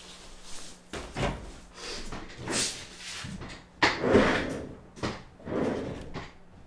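Cloth rustling and handling noises, then a sudden thump about four seconds in as a person drops into a padded office chair, followed by more rustling.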